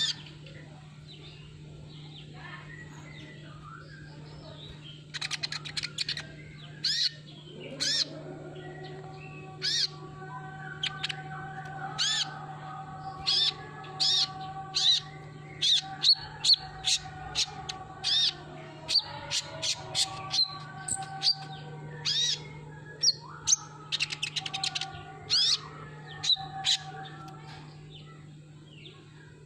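Sunbird calling: quick, sharp, high chirps in irregular runs, thickest in the middle stretch. A steady low hum sits underneath, and from about seven seconds in there are held lower tones.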